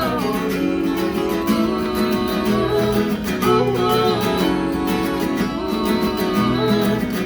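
Live band playing an instrumental passage, led by a strummed acoustic guitar over steady bass notes.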